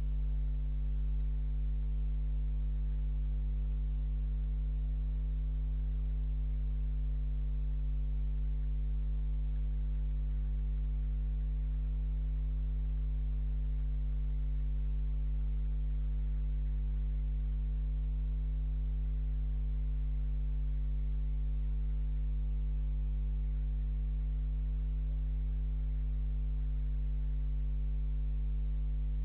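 Steady low electrical mains hum with a faint hiss from a security camera's audio, unchanging throughout; no distinct animal sounds stand out.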